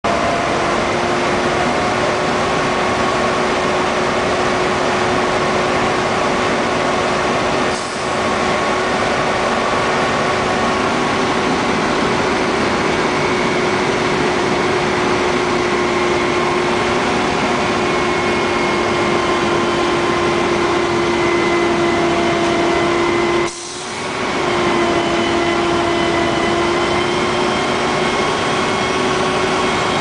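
Mack garbage truck's diesel engine running loud and steady, with a steady whine over it. The sound drops briefly about 8 seconds in and again about 23 seconds in, picking back up within a second.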